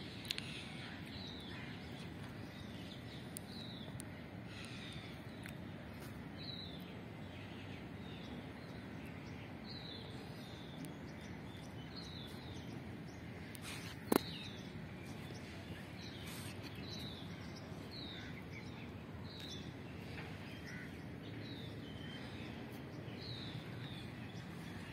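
Steady outdoor background noise with birds chirping, short high calls repeating about once a second. A single sharp click about halfway through.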